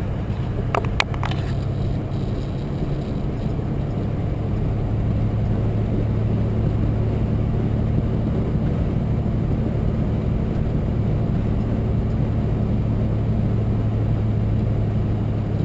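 Semi-truck's diesel engine droning steadily at highway speed, heard inside the cab over road rumble. A few short clicks about a second in.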